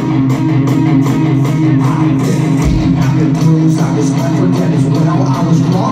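Live rock band playing an instrumental passage: electric guitar and bass over a steady beat, with no singing.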